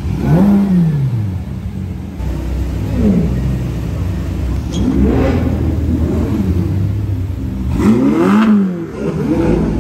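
Ferrari supercar engines idling and being blipped, with several sharp revs that rise and fall back to idle, the strongest near the start and about eight seconds in.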